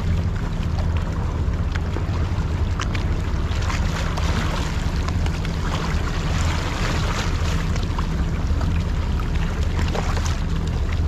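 Small harbour waves lapping and splashing against sandstone rocks close to the microphone, with wind buffeting the microphone as a steady low rumble underneath.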